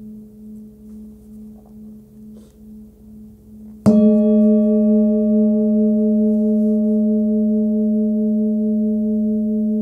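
An 18.5 cm Nepalese singing bowl tuned near 213 Hz (G#/A) ringing with a slow pulsing beat, about two pulses a second. It is struck sharply about four seconds in and rings on much louder, with its higher overtones, fading slowly.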